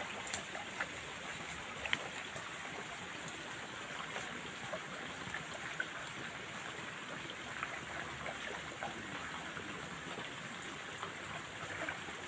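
Steady outdoor background hiss at a pond's edge, water-like, with a high steady tone above it and a few faint clicks.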